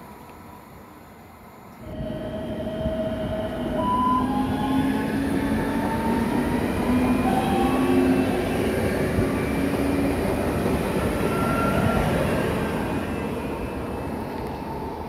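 Passenger train passing through a station at speed: a steady rush of wheels on rail with several high whining and squealing tones over it. It starts abruptly about two seconds in and eases off near the end.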